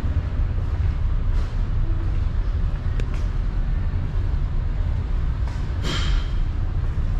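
Steady low rumble of a ship's below-deck machinery and ventilation, with a single sharp click about three seconds in and a short noisy scrape about six seconds in.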